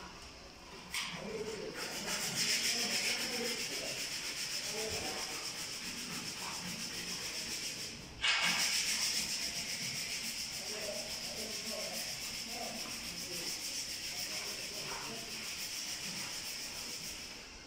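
Continuous rasping of gypsum plaster being sanded, with a brief break and an abrupt, louder restart about eight seconds in.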